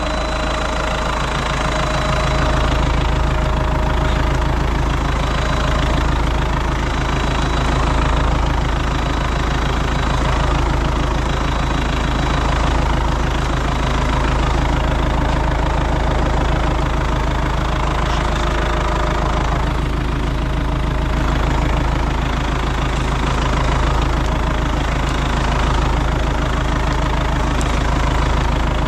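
An engine idling steadily, a little louder from about two seconds in.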